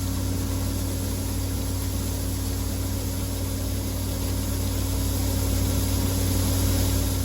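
A vehicle engine running steadily at idle: a constant low hum with a steady drone and an even hiss over it.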